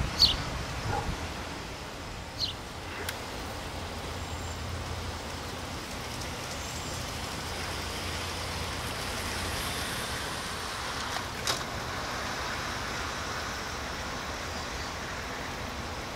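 G-scale garden model train rolling along its outdoor track: a steady low rumble under an outdoor hiss, strongest in the middle as the cars pass. A few short, sharp high chirps or clicks come near the start and again about two-thirds through.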